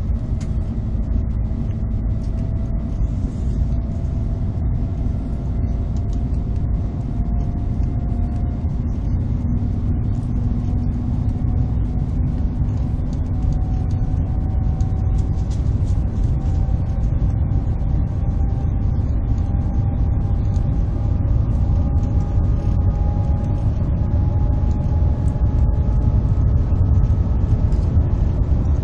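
Shanghai Maglev train heard from inside the passenger cabin: a steady low rumble with faint whining tones that slowly rise in pitch as the train gathers speed. It grows slightly louder toward the end.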